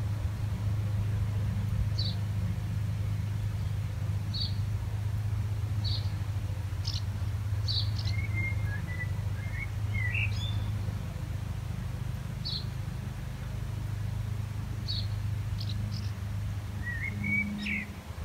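Small birds chirping outdoors: short single chirps every second or two, with a twittering phrase about halfway through and another near the end, over a steady low hum.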